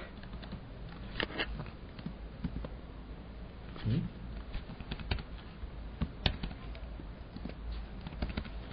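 Scattered faint clicks and taps at a desk, over a low steady hum, with one duller thump about four seconds in.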